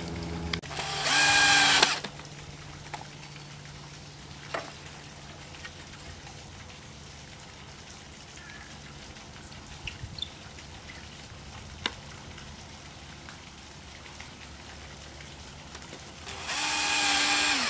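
Cordless drill driving screws through a wooden upright into a shelf: two runs of about a second each, one near the start and one near the end, the motor's pitch dropping as each screw pulls tight. In between, a few faint clicks and knocks of the wood pieces being handled.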